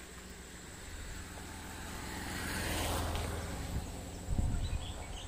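Motor vehicle passing on the road: a steady low engine hum with a wider rushing sound that swells to a peak about three seconds in and then fades. A burst of low rumble follows near the end.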